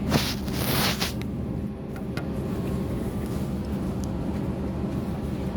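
Steady low hum of an airliner cabin waiting to depart, with a short hiss and a click during the first second.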